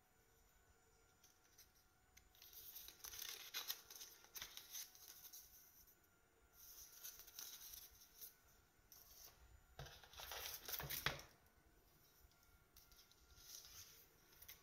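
Paper and bubble-wrap packaging rustling and crinkling as it is handled, in several soft bursts, the loudest about ten to eleven seconds in.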